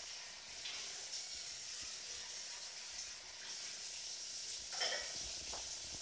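Cockatiel chicks hissing in the nest box: a steady, breathy high hiss that swells in a few short pulses, with one brief chick call about five seconds in. Nestling cockatiels hiss like this as a defensive reaction when disturbed.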